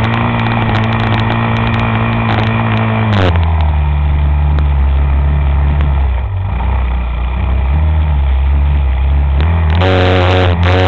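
A motor vehicle's engine running, its pitch dropping sharply about three seconds in and rising again near the end.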